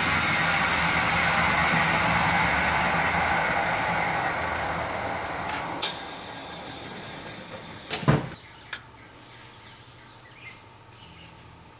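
Milling machine spindle with a boring head winding down, its whir fading steadily over several seconds. A few sharp metallic clunks come about six and eight seconds in.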